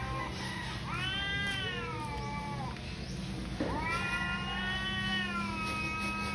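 Domestic cats in a territorial standoff, caterwauling: long, drawn-out, wavering yowls. One yowl runs from about a second in for nearly two seconds, and a longer one starts just past the middle and carries on to the end.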